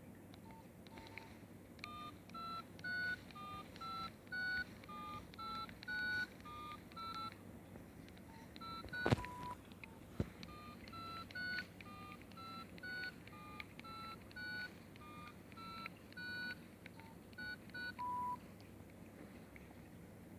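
Nokia 6300 mobile phone playing a ringtone: a short melody of beep-like notes that ends on a longer held note, played through twice. A sharp click falls between the two passes.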